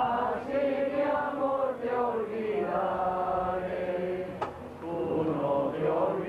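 A group of people singing a devotional song to the Virgin together, many voices in chorus. A single sharp click comes about four seconds in.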